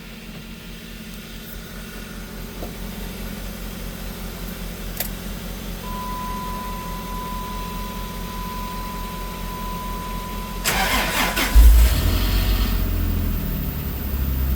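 Dodge Ram 1500 cold-started in 15-degree weather. A click about five seconds in is followed by a steady high beep lasting about five seconds. The starter then cranks briefly, about eleven seconds in, and the engine catches at once and settles to a steady idle.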